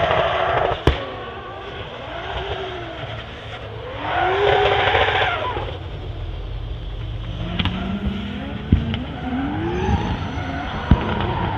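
Toyota Supra drift car's 2JZ-GTE engine revving on and off the throttle, with sharp anti-lag bangs and some tyre squeal. The engine climbs loudly and falls away about four seconds in, and the cracks come singly through the rest.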